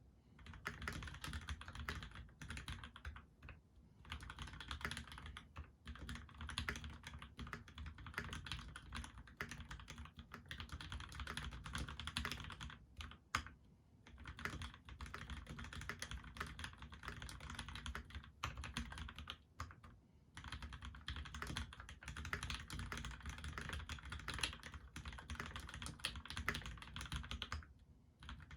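Custom Monstargear PC XO mechanical keyboard with lubed Gateron Ink Black linear switches, a brass plate and GMK keycaps being typed on in quick, steady runs of keystrokes. Short pauses break the typing a few times.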